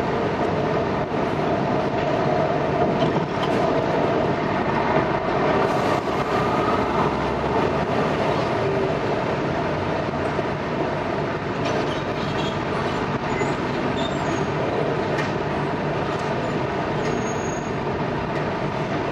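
Boat engine running steadily: a loud, even mechanical drone with no change in pace.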